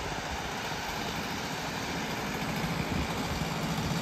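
Stihl MS250 two-stroke chainsaw engine running steadily.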